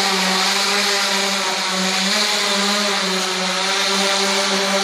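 Omni Hoverboard, a rider-carrying multi-rotor electric hoverboard, in flight: its propellers give a steady buzzing hum at one held pitch with overtones, over a rushing hiss of rotor wash.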